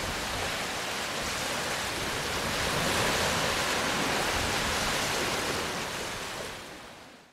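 Surf washing up on a sandy beach: a steady rush of wave noise that swells a little about three seconds in and fades out near the end.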